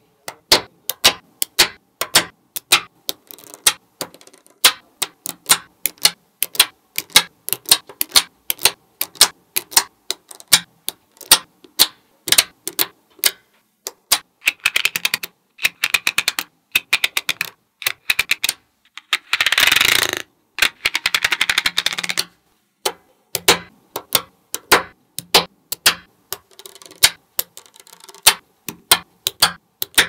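Small neodymium magnetic balls clicking and snapping together as blocks of them are pressed into place, in irregular sharp clicks. A little past the middle comes a dense clatter of many balls at once, lasting about two seconds.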